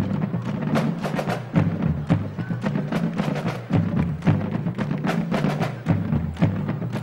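A drum corps playing rapid, tightly unison snare drum patterns, with many sharp stick strokes each second over a low sustained accompaniment that shifts in pitch.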